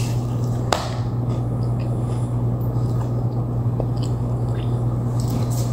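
Chewing a soft homemade cookie s'more with a graham-cracker base, with a few short crunchy clicks, over a steady low hum.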